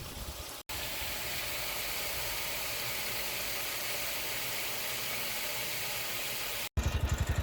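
A steady rushing noise, then, after a cut near the end, a small engine running with a rapid, even low thumping.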